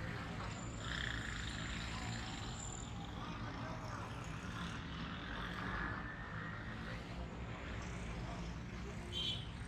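Busy street traffic: auto-rickshaw and motorcycle engines running close by, a steady low rumble, with a brief sharper sound near the end.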